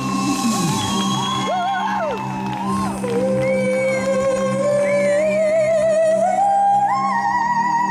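Live band playing, with male and female singers trading vocal runs over drums and keyboards; about three seconds in, a singer holds a long note with vibrato that climbs in steps.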